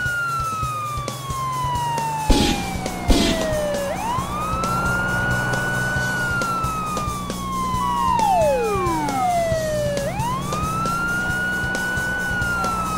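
Police car siren wailing slowly, each cycle a quick rise then a long fall, about every six seconds, over a steady low drone. Two sharp knocks come a little over two and three seconds in, and a falling whistle about eight seconds in.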